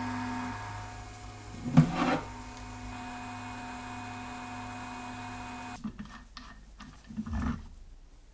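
Elegoo resin 3D printer running, with a steady motor whine and hum as its build plate lifts out of the resin vat, and a sharp clunk about two seconds in. The machine sound stops about six seconds in, and a few light knocks and handling sounds follow as the build plate with its printed parts is taken off.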